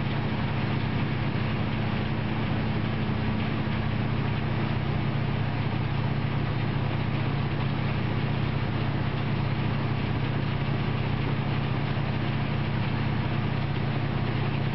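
A steady, unchanging low mechanical drone, like an engine running, with no rail clatter or crash sounds.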